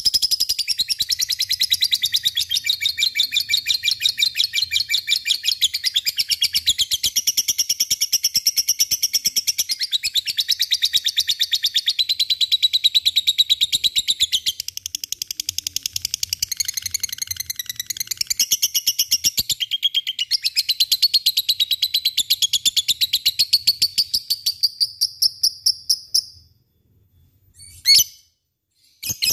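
A lovebird giving its long 'ngekek' chatter: a fast, unbroken run of shrill chirps that goes on for over twenty seconds and then stops, followed by two short bursts near the end.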